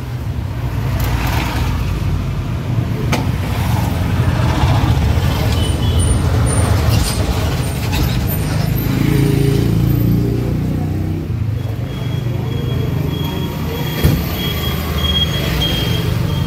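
Autorickshaw engine running steadily, heard from inside the open passenger cabin while riding through traffic, with a bus passing close alongside about eight seconds in. A single sharp knock near the end.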